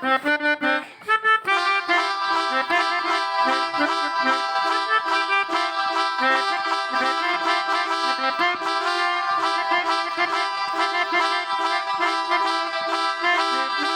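Reedy melodica tones from a phone pianika app picking out a telolet bus-horn tune: a few short notes, then a continuous run of held and changing notes with several pitches sounding at once.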